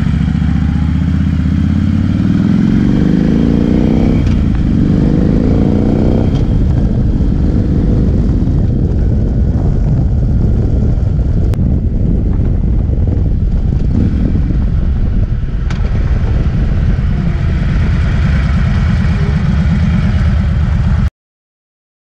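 Harley-Davidson Street Glide's 103 cubic-inch V-twin accelerating through two gear changes, its pitch rising and dropping at each shift, then cruising with a steady rush of wind and road noise on a camera mounted low by the floorboard. The sound cuts off suddenly near the end.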